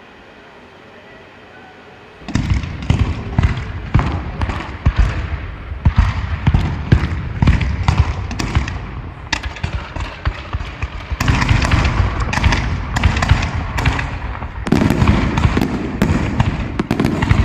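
Fireworks going off in a rapid, dense barrage of overlapping bangs, starting suddenly about two seconds in after a low steady background.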